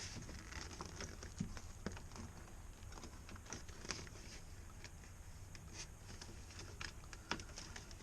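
Faint, scattered small clicks and ticks of hands working at a plastic wiring connector and clips inside a truck door.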